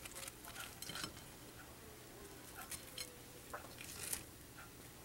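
Faint, scattered crackles and clicks of a hand handling crispy fried chicken over a china plate, dipping a chicken strip into mashed potatoes and gravy. The sharpest clicks come about a second in and again about four seconds in.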